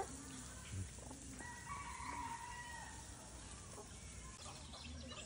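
Faint calls of fowl, with one held call lasting about a second and a half, over quiet outdoor background noise.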